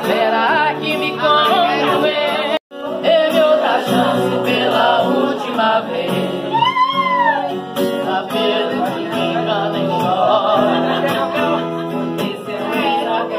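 A man singing while strumming chords on a nylon-string classical guitar. The sound drops out abruptly for an instant about two and a half seconds in. Around seven seconds in a high voice glides up and back down.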